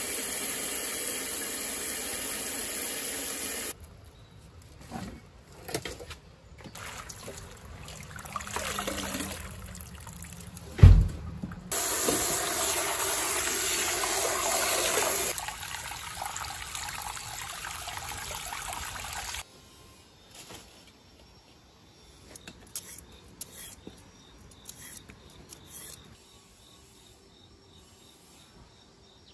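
Tap water pouring into a stainless steel basin in steady stretches, with cut napa cabbage leaves being swished and rinsed by hand in it. A single loud thump comes about eleven seconds in, and near the end the water stops, leaving only faint light knocks.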